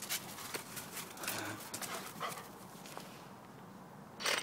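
Yellow Labrador making excited noises as it darts about: a run of short, breathy huffs and yips, then a loud breathy snort right at the microphone near the end.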